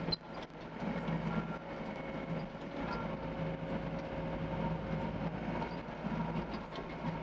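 Doosan DX55 mini excavator's diesel engine running steadily while the machine digs, a constant low hum with higher steady tones above it.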